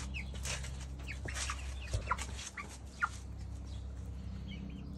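Two-month-old hens (pullets) giving short, scattered calls that slide downward in pitch, with soft clucks. A single soft knock comes about two seconds in.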